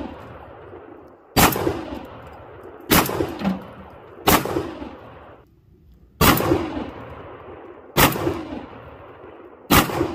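Six 12 gauge shotgun blasts firing rifled slugs, about one and a half to two seconds apart, each trailing off in an echo.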